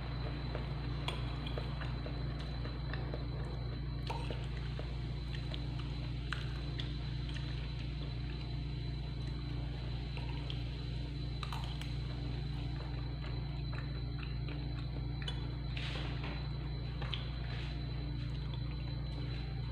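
Wet chewing and light clicks of a metal spoon against a ceramic bowl of rice, over a steady low hum.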